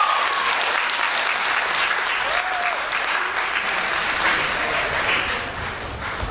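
Audience applauding, with a voice calling out briefly about two and a half seconds in; the clapping eases off slightly toward the end.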